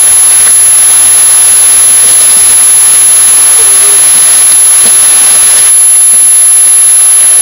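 Loud, steady hiss, strongest in the upper range, whose tone changes abruptly about six seconds in.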